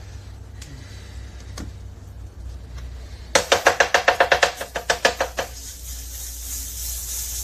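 A rapid run of sharp, pitched percussive taps, about eight a second, lasting about two seconds in the middle.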